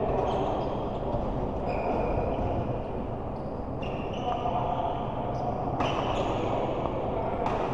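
Sports hall noise during doubles play: a steady background din with several short high squeaks and two sharp hits, about six and seven and a half seconds in.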